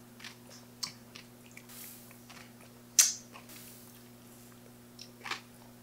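Quiet mouth sounds of someone sipping a blended iced coffee drink through a plastic straw: a few soft clicks and one short, louder slurp about three seconds in, with a smaller one near the end.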